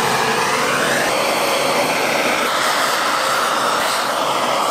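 Handheld kitchen gas torch burning with a steady hiss, its flame scorching a thin smear of doenjang paste on the bottom of a cast-iron pot.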